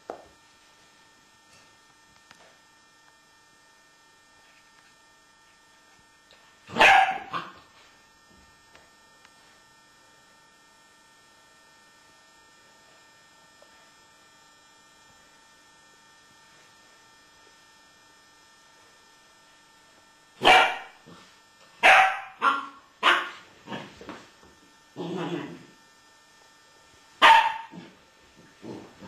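American Staffordshire Terrier barking: a single bark about a quarter of the way in, then a run of about seven barks in the second half, one of them lower and longer.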